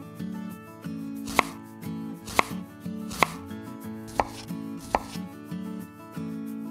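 A small kitchen knife chopping diced potato on a miniature wooden cutting board: five sharp knocks of the blade on the board, roughly a second apart.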